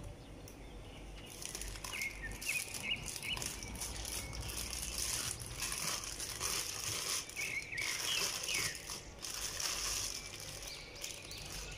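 Thin plastic bag rustling and crinkling as it is handled, starting about a second in.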